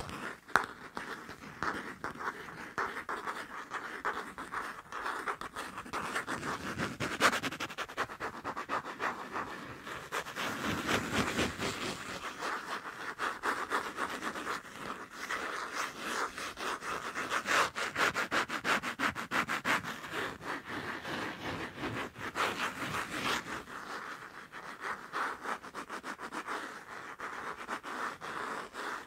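Fast tapping and scratching on a passport: a dense, rapid run of taps and scratchy strokes that keeps going without a break.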